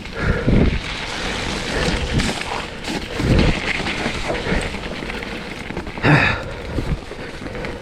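Mountain bike working its way over a wet, snowy trail: a steady hiss with tyre rumble and heavy thumps from the bike going over bumps, twice in the first half, and a short sharp burst about six seconds in.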